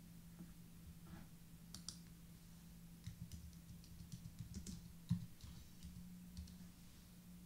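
Faint computer keyboard typing, scattered key clicks, with a louder low thump about five seconds in and a steady low hum underneath.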